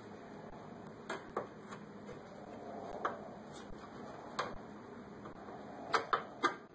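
Scattered light metal clicks and taps as a car's tie rod end is handled and worked into the steering knuckle by hand, with a quick run of three clicks near the end.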